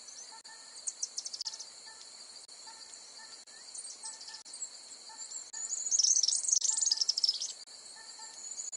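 Birds chirping over a steady high insect chirring, with a short pitched call repeating about once a second. A louder flurry of chirps comes about six seconds in.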